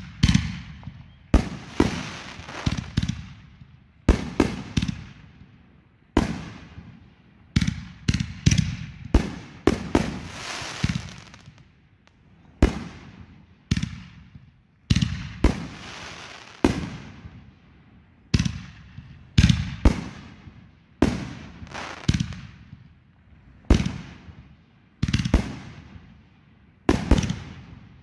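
Consumer aerial fireworks shot one after another, a sharp bang every second or two, each followed by a fading crackle and hiss of bursting stars.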